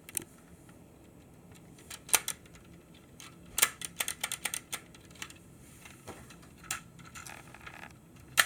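Hard plastic Lego Technic parts clicking and clacking as the model is handled and its doors are worked. The clicks are sharp and irregular, with a quick run of them about halfway through.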